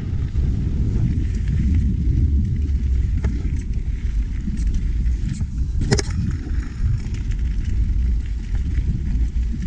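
Mountain bike descending a dirt and gravel trail at speed: heavy wind rumble on the microphone, tyres rolling over loose dirt and small rocks, and scattered ticks and rattles from the bike. One sharp clack about six seconds in.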